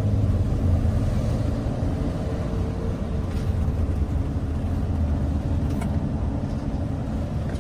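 Mercedes-Benz Sprinter van driving over a rough gravel road, heard from inside: a steady low rumble of tyres and engine, with a couple of faint clicks.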